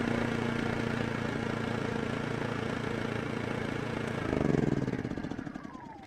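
Champion inverter generator's small gas engine running steadily, then briefly surging about four seconds in before winding down with a falling pitch as it shuts off.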